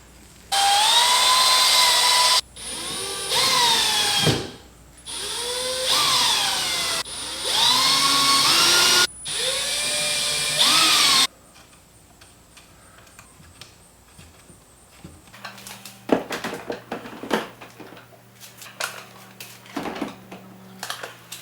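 Power drill running in about five bursts of a second or two each, its motor whine rising and falling with the trigger. Then light clicks and knocks of handling.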